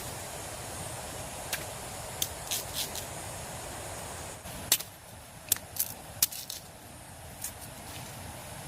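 A scattering of short, sharp clicks and snaps over a steady background hiss, the clicks bunched between about one and a half and six and a half seconds in, with one more near the end.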